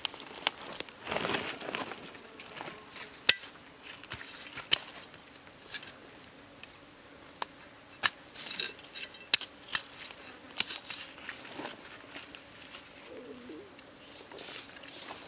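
Large knife blade prodding into dry leaf litter, wood and stones under a rotten log: scattered sharp clinks and taps a second or two apart, with rustling of dry leaves.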